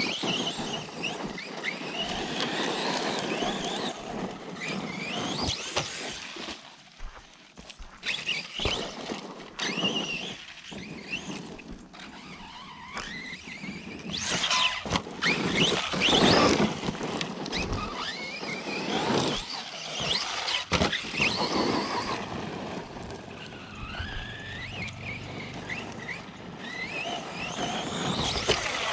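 Arrma Outcast 4S V2 RC truck being driven hard off-road: its brushless motor whines up and down in pitch with the throttle. Sharp knocks and clatter come as the truck lands and hits the ground, loudest about 14 to 17 seconds in.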